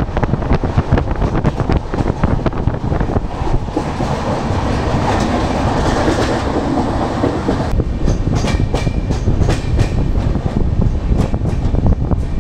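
Rajdhani Express passenger coach running at speed, heard through an open coach door: the steady rumble of the wheels with a rapid clickety-clack of the wheels over the rails.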